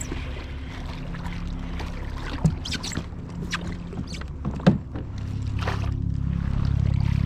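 Sounds from a fishing kayak on the water: a steady low hum with a few sharp knocks and clicks, the hum getting a little louder near the end.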